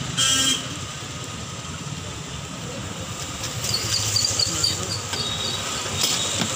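Road traffic noise with a vehicle engine running under a steady low hum. There is a short, loud, high-pitched blast just after the start, and a quick run of high chirping beeps, about four or five a second, in the middle.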